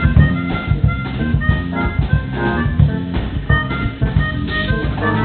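Instrumental background music with a steady drum beat under sustained organ-like notes.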